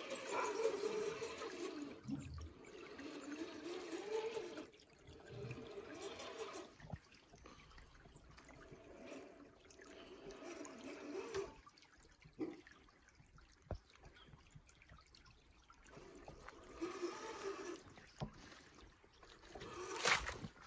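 Radio-controlled rock crawler working through a creek: its electric motor and gears whine in bursts that waver in pitch as the throttle comes and goes, over trickling, splashing water, with a few sharp knocks.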